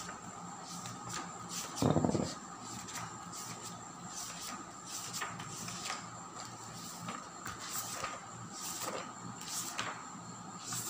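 Paper and objects being handled on a table: scattered rustles and light clicks, with one louder knock about two seconds in, over a faint steady hum.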